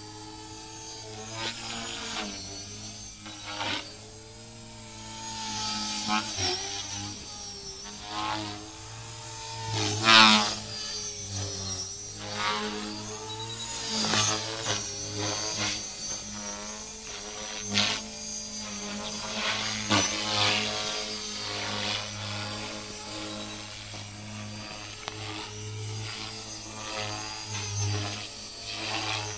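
Align T-Rex 450L Dominator electric RC helicopter in flight. Its brushless motor and rotor whine rise and fall in pitch and loudness as it manoeuvres, with several louder swells as it passes.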